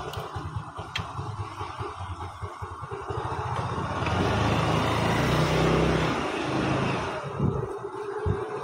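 Engine and road noise of a moving two-wheeler heard from the pillion seat, with wind buffeting the microphone. It grows louder about three seconds in and eases near the end.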